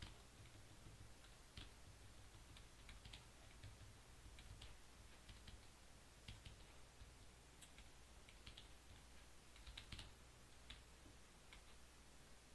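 Faint, irregular clicking of computer keyboard typing, a dozen or more light taps at uneven intervals, over a low steady hum.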